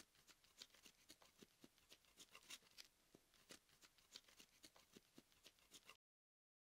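Faint, irregular light clicks and taps, several a second, of small objects being handled. The sound cuts off abruptly near the end.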